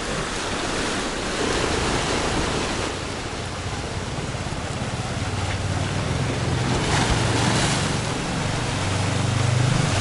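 Rough sea surf: small waves washing and breaking over shoreline rocks, with wind on the microphone. A low engine hum joins about halfway through.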